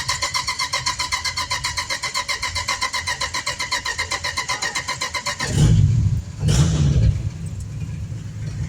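Dodge Lancer being started: the starter cranks the engine in a fast, even rhythm, the engine catches about five and a half seconds in, revs twice, then settles to a steady idle.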